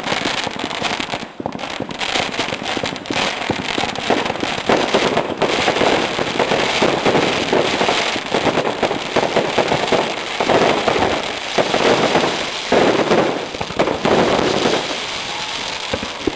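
Fireworks crackling: a dense, unbroken stream of rapid small pops and crackles, growing heavier a few seconds in and easing slightly near the end.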